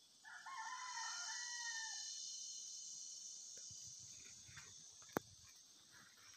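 A rooster crows once, a single call of just under two seconds that falls slightly at its end, over a steady high-pitched insect drone. A sharp click about five seconds in.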